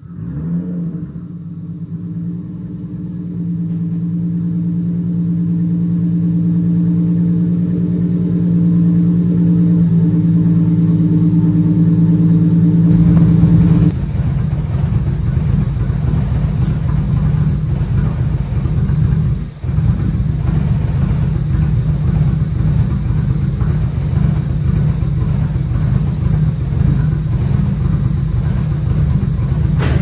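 Nissan R32 Skyline's RB25 turbocharged inline-six idling steadily through a 4-inch exhaust. About 13 seconds in the sound changes abruptly to a rougher, fuller rumble, with a brief dip about 19 seconds in.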